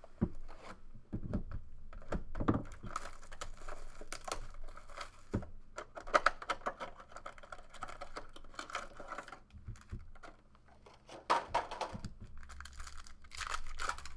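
Clear plastic wrap on a sealed trading-card box being torn and crinkled off, in several crackling spurts, after a few knocks as the box is pulled from its case. Near the end a foil card pack is torn open.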